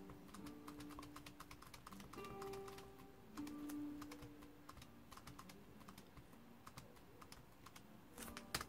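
Faint, quick and irregular clicking of laptop keyboard keys being typed, over quiet background music with long held notes; the clicks bunch more loudly near the end.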